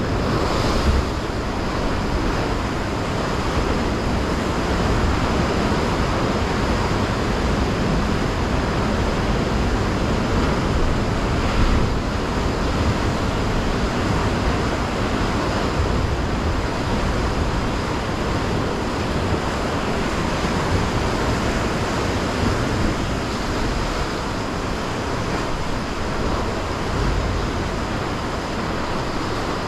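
Rough sea surf crashing and churning against coastal rocks, a steady wash of noise with wind rumbling on the microphone.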